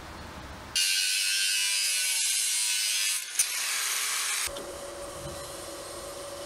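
Angle grinder with a thin cut-off disc cutting through a square steel profile tube: a loud, harsh hiss that starts abruptly about a second in and lasts about two and a half seconds, then eases off with a single sharp tick. From about four and a half seconds in, a quieter steady hum with one tone.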